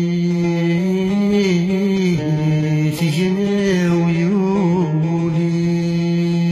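A song playing: a steady held drone note throughout, with a voice singing a winding, ornamented melody over it from about a second in until about five seconds in.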